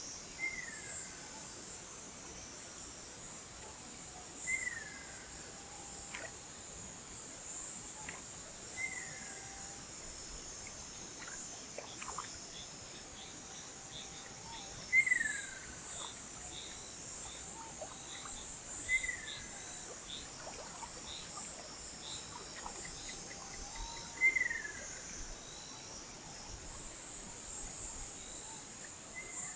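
Ruddy kingfisher calling: six short falling calls, about four seconds apart, over a steady high-pitched chorus of insects.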